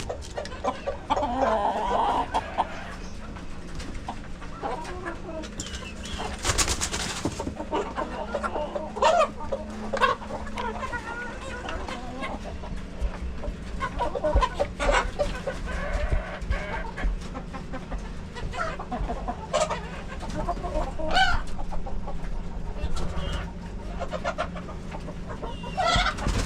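A flock of domestic chickens clucking and calling, with many short calls overlapping throughout.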